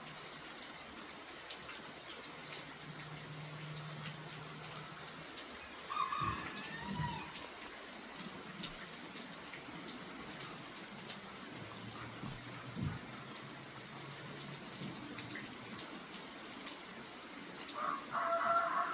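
Steady rain falling, with small drips and ticks throughout. Chickens call briefly about six seconds in and again near the end.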